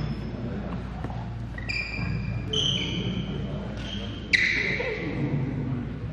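Sneaker soles squeaking on a badminton court mat: several short, high squeaks, one sharper and louder about four seconds in, over the low murmur of a crowd in a large hall.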